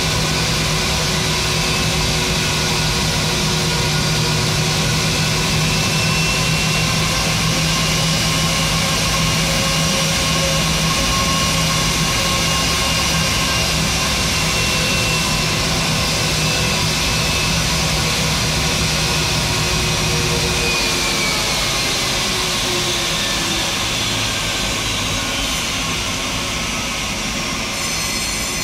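Airbus A320's twin jet engines idling with a steady whine and low hum. After about twenty seconds the hum drops away and the whining tones slide down in pitch as the engines spool down after shutdown.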